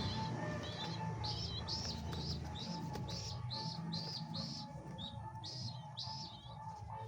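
Pigeon squabs about 18 days old peeping: a quick run of short, high squeaks, two or three a second, thinning out near the end.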